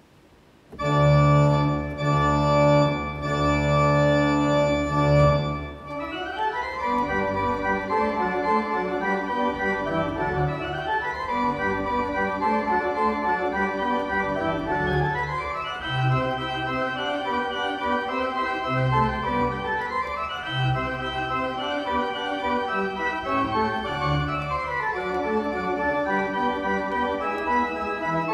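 Pipe organ playing: it comes in about a second in with loud held chords, then from about six seconds in plays fast rising runs over held bass notes, repeating every few seconds.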